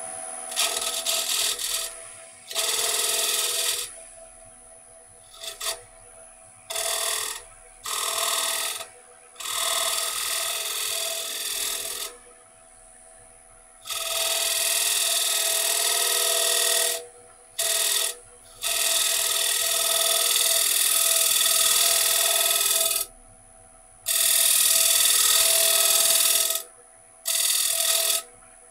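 Wood lathe running with a faint steady whine while a tool is pressed against the spinning wooden plate in about ten rasping strokes, from under a second to about five seconds long, the longest past the middle: cleaning black finish off the turned plate.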